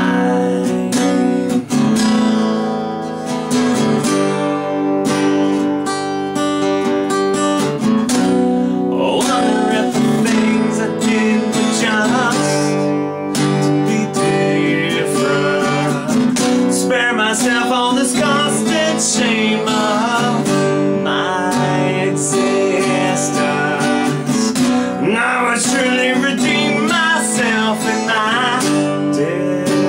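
Solo acoustic guitar strummed steadily, with a man singing over it at times.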